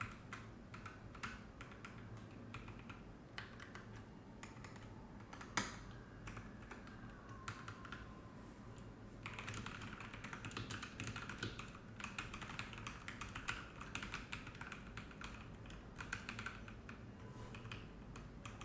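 Typing on a NuPhy Halo75 mechanical keyboard. Scattered keystrokes at first, with one sharper, louder clack about five and a half seconds in, then faster, denser typing from about nine seconds in that thins out near the end.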